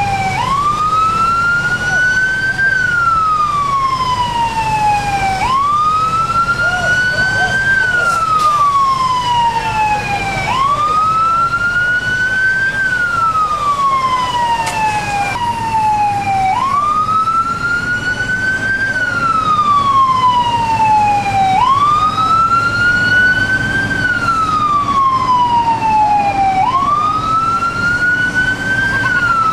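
Fire truck siren wailing: its pitch climbs quickly and then slides slowly back down, about every five seconds, six times over, above a steady low rumble.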